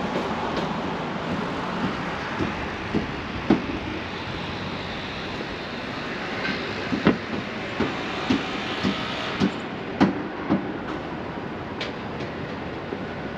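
Steady city background noise with a run of short knocks, about two a second, that grows clearer in the second half.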